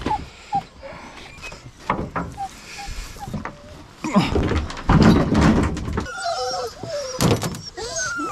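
Beagles whining and yipping in a dog box, the calls coming thick and fast from about six seconds in, with thumps and knocks from around the truck bed earlier on.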